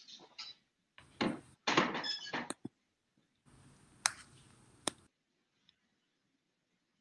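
Video-call audio: a loud, brief stretch of indistinct sound about a second in, then two sharp clicks just under a second apart. After that the audio cuts off to silence as the call is ended.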